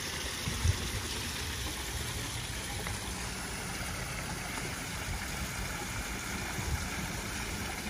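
Steady splashing rush of water from a small rock waterfall spilling into a backyard pond, with a low rumble underneath and a short thump under a second in.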